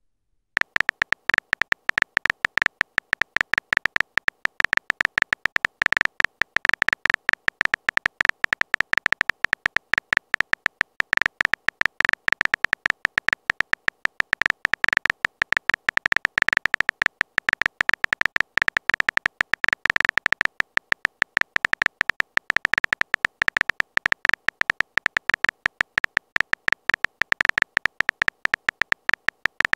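Rapid, continuous run of short, high keyboard clicks: the typing sound effect of a texting-story app as a message is typed out.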